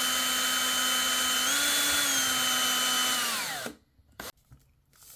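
Electric drill running steadily while boring a hole through a plexiglass (acrylic) sheet. Its whine rises slightly in speed partway through, then the trigger is released about three and a half seconds in and the motor winds down to a stop. A few faint ticks follow.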